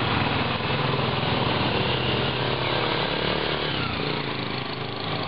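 Small motorcycle engines running as a motorcycle and a motorcycle taxi pass close by, over steady street traffic noise.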